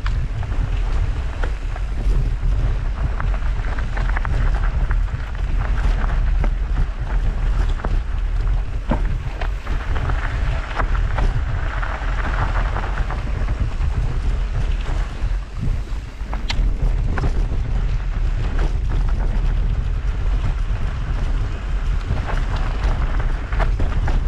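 Wind buffeting the bike-mounted camera's microphone, with a steady low rumble. Over it, the rattle and small knocks of a mountain bike rolling over a dirt singletrack. A dry hiss of tall grass brushing past swells about ten to thirteen seconds in.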